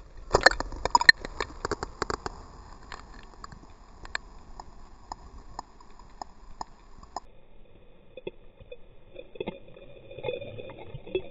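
River water splashing and knocking against a camera held at and under the surface beside a released steelhead: a quick run of sharp clicks and knocks, loudest in the first second, thinning out over the next few seconds. About seven seconds in the sound turns duller, as heard underwater, with scattered clicks.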